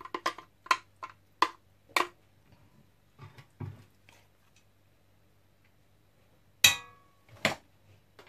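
Metal spoon tapping and scraping against a plastic container, about six sharp clicks in the first two seconds, then a couple of soft thuds. Near the end a louder metallic clink with a short ring, and one more click.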